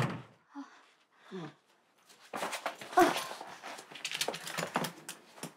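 Small dog whimpering softly twice, the second falling in pitch. From about two seconds in come a run of light clicks and rustling as its harness and leash are handled, with one more short whine.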